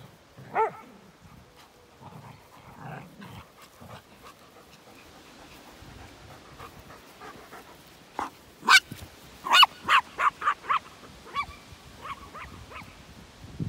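Small dog barking in sharp, high-pitched yaps. There is a single bark about half a second in, then a quick run of barks from about eight to eleven seconds in.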